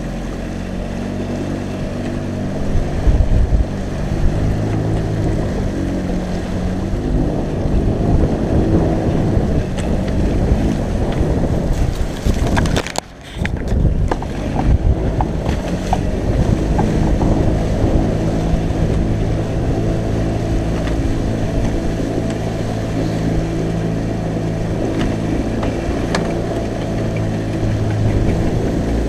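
Outboard motor running steadily at speed as the small aluminium boat drives through choppy lake water. Wind buffets the microphone and the hull knocks on the waves, loudest a few seconds in. The sound drops out briefly about halfway through.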